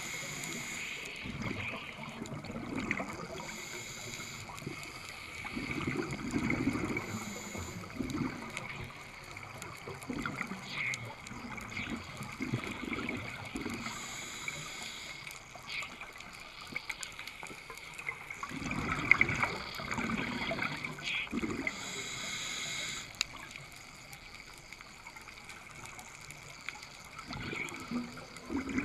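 Scuba diver breathing through a regulator underwater: a short hiss on each inhale and gurgling, rumbling bubble bursts on each exhale, several times over.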